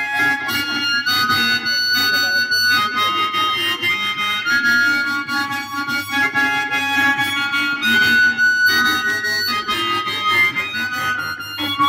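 Mouth organ (harmonica) playing a melody of held notes that step from one pitch to the next, amplified through a handheld microphone and loudspeaker.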